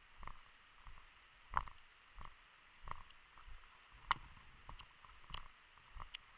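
Footsteps of a person walking on a concrete-slab road, picked up by a body-worn camera: a steady walking rhythm of about one and a half dull steps a second.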